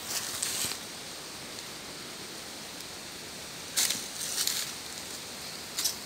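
Rustling in a few short bursts over a steady hiss, as of dry leaf litter being stirred.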